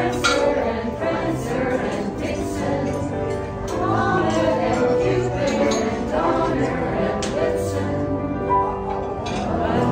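A group of carolers singing a Christmas carol together, their voices holding long notes.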